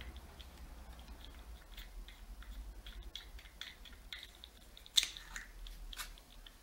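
Hands handling a small plastic action-camera mount and its plastic packaging: a run of light crinkles and small clicks, with one sharp plastic click about five seconds in.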